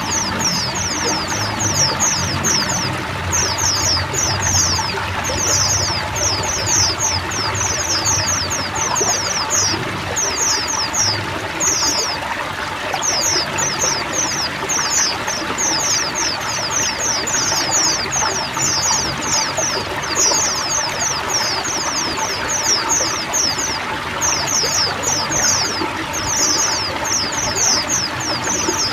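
A group of white-eyes (pleci) chirping in quick runs of short, high notes that go on almost without a break, over a steady rush of running water.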